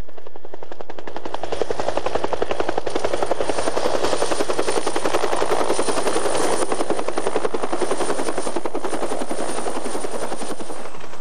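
A Bell Huey-family military helicopter approaching low, its main rotor beating rapidly and evenly over the engine noise, swelling slightly toward the middle.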